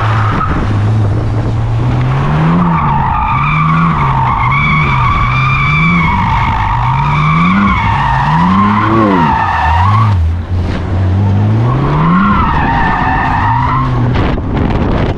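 BMW M4's twin-turbo straight-six revving up and down again and again while drifting, its tyres squealing in long, wavering screeches. The squeal breaks off briefly about ten seconds in, then returns.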